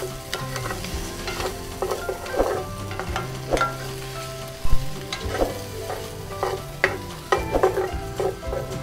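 Boiled pork pieces and garlic sizzling in hot oil in a stainless steel pan while a wooden spoon stirs them, scraping and knocking irregularly against the pan; the loudest knock comes a little under five seconds in.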